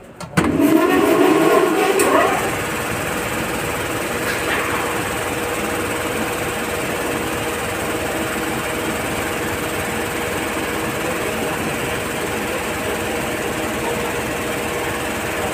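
ELGi TS-series reciprocating air compressor starting up: its electric motor spins up with a rising whine over the first two seconds, loudest at start-up, then the compressor settles into steady running with a constant hum.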